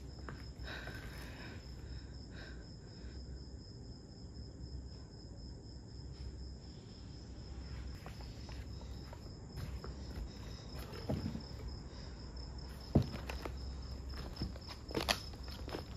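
Crickets chirping steadily in a high pulsing trill, with a few footsteps on broken tiles and rubble in the last few seconds, the sharpest about three seconds before the end.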